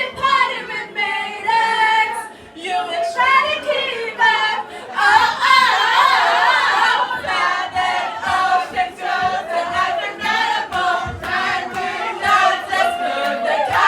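A group of people singing together, with more voices joining in about five seconds in.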